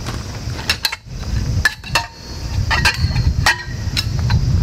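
Red segmented metal tarp pole being pulled apart and folded, its sections knocking and clinking together in about half a dozen sharp clicks that each ring briefly, over a low rumble.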